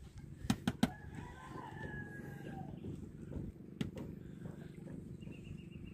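Three sharp knocks about half a second in, then a rooster crowing: one drawn-out call that falls slowly in pitch, over a low steady rumble.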